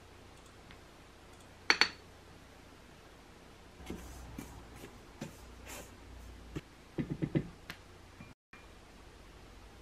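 Two sharp clinks about two seconds in, then a silicone spatula stirring and scraping dry flour in a stainless steel mixing bowl, ending with a quick run of light taps about seven seconds in.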